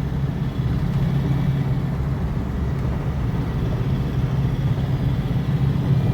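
Car engine and road noise heard from inside the moving car: a steady low hum.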